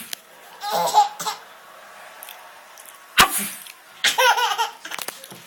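A small child laughing in short bursts of repeated giggles. A single sharp, loud burst comes about three seconds in.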